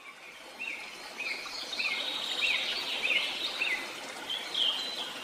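Birds singing over a steady rush of flowing stream water, fading in at the start. One bird repeats a short rising-and-falling chirp six times, about every half second, and a different call follows near the end.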